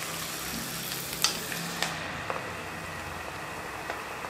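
Peanuts deep-frying in hot oil in a steel kadai, with a steady sizzle. A few light clicks from the metal spoon and perforated strainer come between about one and two and a half seconds in.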